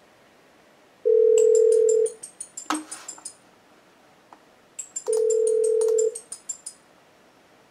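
Yealink T31 IP phone's speakerphone playing the ringback tone of an outgoing call: two one-second steady tones about four seconds apart, meaning the called extension is ringing. A fainter, high-pitched ringtone of quick repeated notes sounds alongside each tone from the softphone receiving the call.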